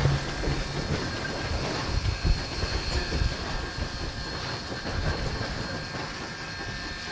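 Flagg Coal 75, a small tank steam locomotive, moving slowly along the track. Uneven low thumps sound over a steady rushing noise, with wheel-on-rail noise.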